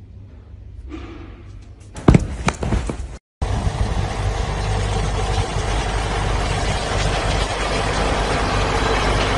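A few sharp knocks about two seconds in, then, after a brief gap, a tractor engine and its tulip-topping machine running steadily.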